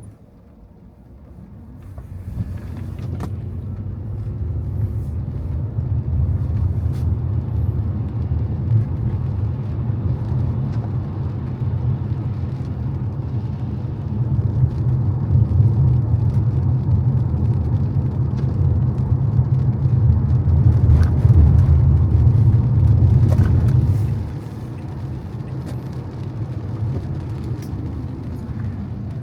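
Car driving on wet roads: a steady low rumble of engine and tyre noise that builds up over the first few seconds and drops back a few seconds before the end, with a few sharp ticks on top.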